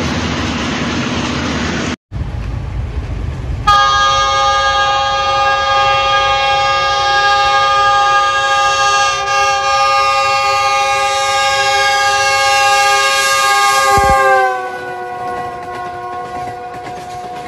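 Moving train rumbling briefly, then a GE U20C (GEU-20) diesel-electric locomotive sounding a long blast on its multi-note air horn, a steady chord held for about ten seconds. Near the end the chord drops slightly in pitch and gets quieter, as a horn does when the locomotive passes.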